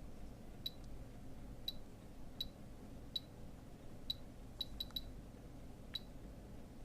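Casio SF-4900ER digital diary giving short high key-press beeps as its buttons are pressed, about nine in all at uneven intervals, with a quick run of three a little before the five-second mark.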